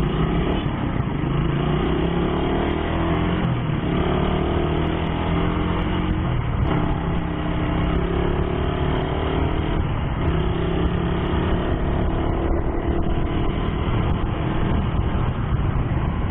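Motorcycle engine under way, its pitch rising again and again over a few seconds at a time as it accelerates through the gears, over a steady rush of wind and road noise.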